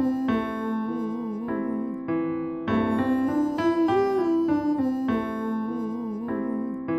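Vocal riff exercise over electric piano chords. A voice slides up to a high note and then runs down in quick, wavy note turns, and the phrase comes round twice while the keyboard holds the chord.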